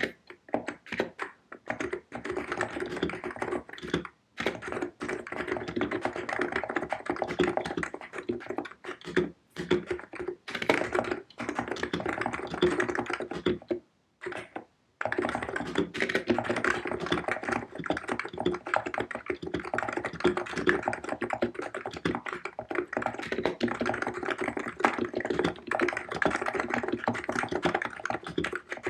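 COX Empress electro-capacitive (non-contact) keyboard with 50 g keys being typed on quickly and continuously: a dense patter of soft, bubbly keystrokes. The typing breaks off briefly about four seconds in and again for about a second around fourteen seconds in.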